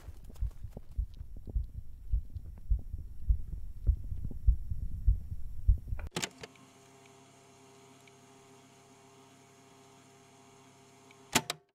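Dull low thumps about twice a second, ended by a sharp cut about six seconds in. After the cut comes a faint steady hum with a few held tones, and then two clicks near the end.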